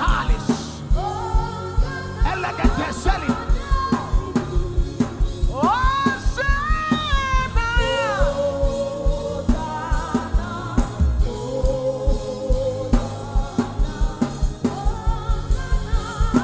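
Live gospel worship music: sustained, drawn-out sung notes with no clear words, including one long held note about six seconds in, over a steady drum beat.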